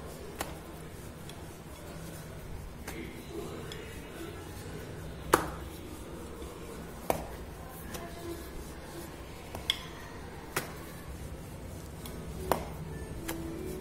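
Wooden rolling pin rolling out stuffed poli dough in a glass bowl: soft rubbing, broken by about seven sharp clicks of the pin knocking against the glass, the loudest about five seconds in.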